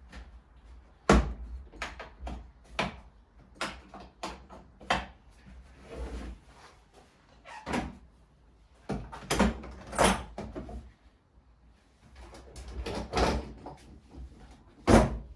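Irregular knocks, clicks and clatters of tools being handled, with no drill running; the loudest knocks come about a second in and near the end.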